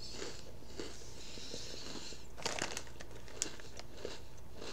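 Plastic snack packaging crinkling as it is handled, followed by a few light clicks.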